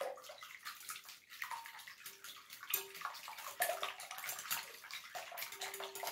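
Wire hand whisk beating raw eggs in a glass bowl: a fast, steady run of sloshing strokes, the wires ticking against the glass.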